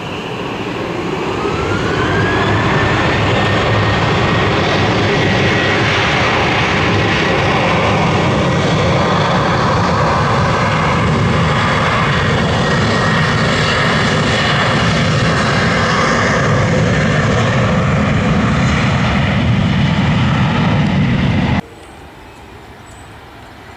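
Bombardier Global Express business jet's Rolls-Royce BR710 turbofans passing close on landing. The jet noise swells over the first couple of seconds while a high fan whine rises and then holds steady. The loud engine sound cuts off suddenly near the end, leaving a much quieter background.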